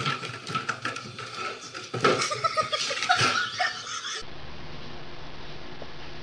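Knocking and clattering of a large cat exercise wheel as a cat runs in it, loudest about two to three and a half seconds in. After about four seconds it gives way to a steady low hum.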